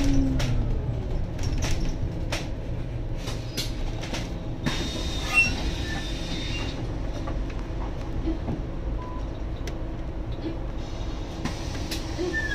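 Inside a Scania N280UD biogas-powered double-decker bus on the move: a low engine and road drone with frequent rattles and clicks from the body and fittings. A brief high squeal comes about five seconds in.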